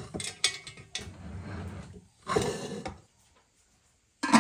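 Knocks and clatter of a large aluminium pot being set down on a wood-stove hotplate, then the metal lid clanking onto it near the end.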